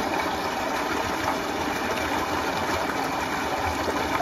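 Tube-well water gushing out of a pipe into a concrete tank, a steady rush.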